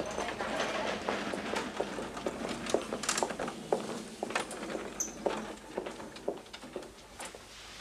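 Footsteps on a hard, polished corridor floor: several people walking, their steps clicking irregularly about once or twice a second.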